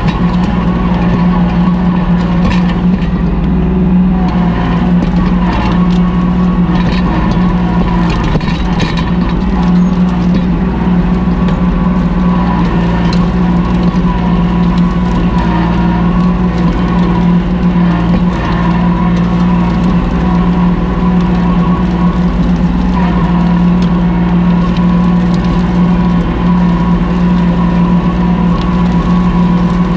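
Kubota L2501 tractor's three-cylinder diesel engine running steadily under throttle, heard close up from on the tractor, with a few brief rattles and knocks early on.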